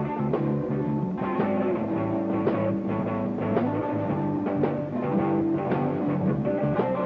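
Electric blues band playing an instrumental stretch between vocal lines: electric guitar over bass and drums, with a steady beat.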